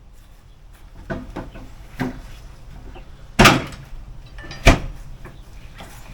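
A series of sharp knocks and clunks, like things being handled and set down, about one a second. The loudest come about three and a half seconds in and near five seconds.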